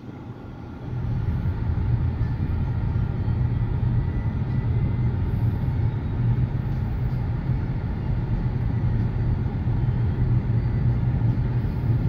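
Car running on a residential street, heard from inside the cabin: a steady low engine and tyre rumble. It is briefly quieter in the first second, then holds steady.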